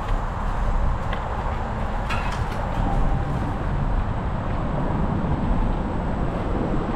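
Specialized Epic mountain bike rolling along a paved path: steady tyre and wind rumble on the microphone, with a few sharp clicks and rattles about one and two seconds in.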